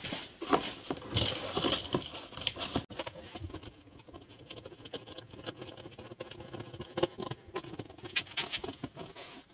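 Small handling noises: masking tape being pressed and smoothed onto glued binding around the edge of a wooden guitar body, a run of light scattered clicks and rustles.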